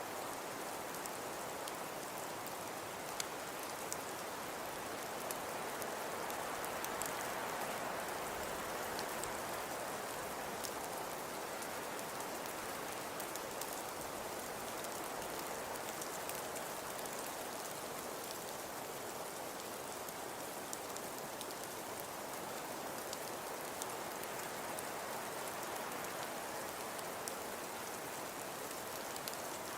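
Steady hiss of falling precipitation, with many faint light ticks of it striking a surface scattered throughout.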